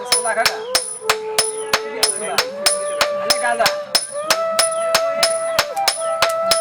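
Blacksmith's hammer striking hot steel on an anvil in a fast, even rhythm of about four blows a second, with a steady ringing tone beneath the blows that steps up in pitch twice.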